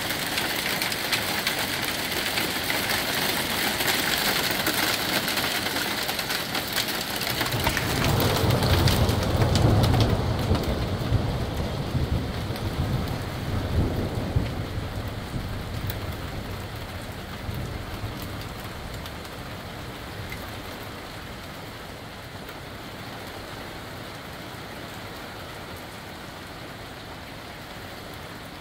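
Heavy rain falling steadily during a thunderstorm. About eight seconds in, a long low rumble of thunder rises, peaks a couple of seconds later and fades over several seconds. The rain then eases to a lighter, quieter patter.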